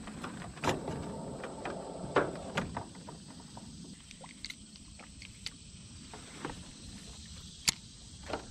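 Scattered clicks and knocks of a spinning reel and fishing rod being handled in a metal boat, over a steady high hiss. The sharpest clicks come about a second in, twice around two seconds in, and once near the end.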